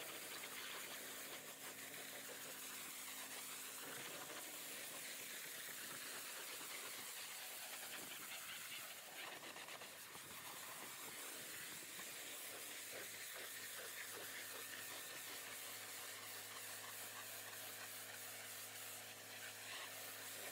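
Pressure washer lance spraying water onto a van's foam-covered panels, rinsing the snow foam off, a steady hiss of spray over the low, even hum of the pressure washer running.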